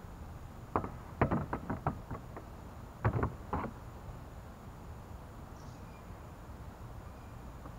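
Swivel boat seat knocking and clattering against the plastic hull of a Bass Raider 10E boat as it is set in place. There is a quick run of knocks about a second in and a few heavier ones around three seconds in.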